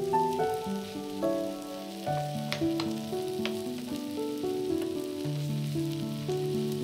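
A cabbage and egg mixture sizzling as it fries in olive oil in a pan, with a few sharp clicks, under background music of plain, steady melodic notes.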